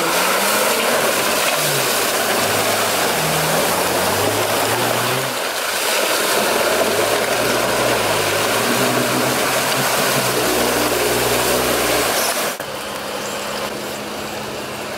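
Jeep Wrangler engine revving up and down as the SUV drives through deep water, with heavy splashing and churning. About twelve and a half seconds in, this gives way to a quieter, steady engine hum.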